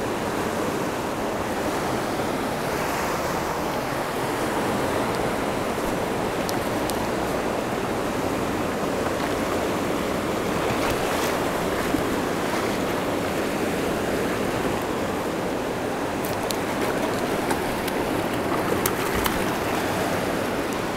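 Fast river rapids rushing steadily close by, with a few faint clicks now and then.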